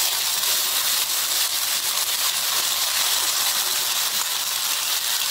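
Chopped vegetables frying in hot oil in a pan, sizzling with a steady hiss as a heap of boiled, drained vermicelli is tipped in on top.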